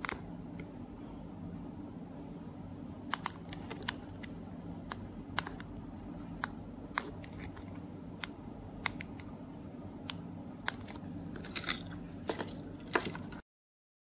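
Plastic buttons of a four-button cloning key-fob remote clicking as they are pressed: a dozen or more short, sharp clicks at uneven intervals, some in quick pairs and clusters near the end, over a steady low background hum.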